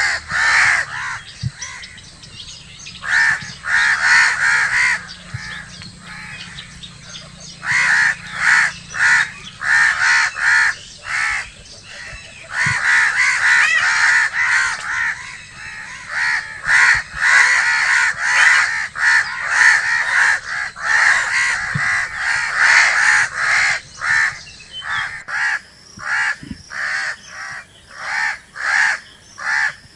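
Crows cawing over and over, in runs of short caws a few a second with brief pauses between the runs.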